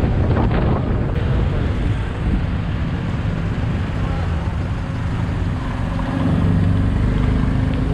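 Motorcycle engine running at low speed, with road and wind noise as the bike rolls slowly; from about six seconds in the engine note settles into a steady low hum.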